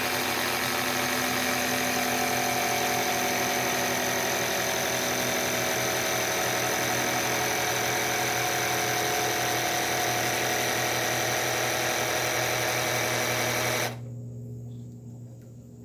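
Small electric air compressor running steadily, pumping air through a tire valve into a PVC pneumatic launcher's chamber. It cuts off suddenly about two seconds before the end.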